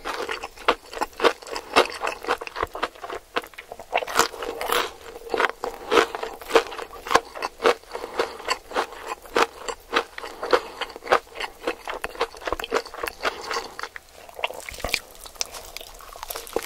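A person chewing and crunching food close to the microphone, crisp crunches coming several times a second; the crunching thins out near the end.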